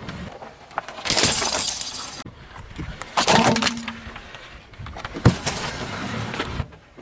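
Crunchy objects cracking and breaking as a car tyre rolls over them, three separate crushes, each a burst of sharp crackling that ends abruptly.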